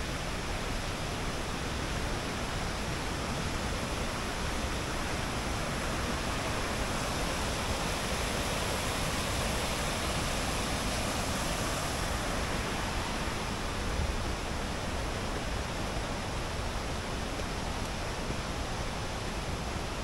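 Ryuzu Falls, a cascade running full with early-summer water, rushing in a steady, unbroken roar of falling water.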